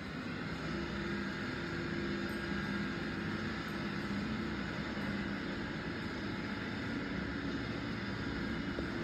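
Steady mechanical hum: a few low steady tones over a constant noisy hiss, building slightly over the first second and then holding even.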